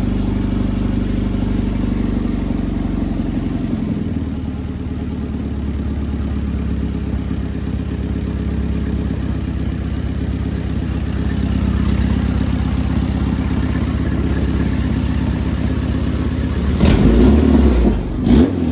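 A 1993 Nissan 240SX's 2.4-litre four-cylinder engine idles out of the car. About four seconds in, the idle drops to a lower, steady speed, and near the end the engine is briefly revved. A small timing-chain ticking runs under it, which the owner takes for a timing chain guide starting to wear.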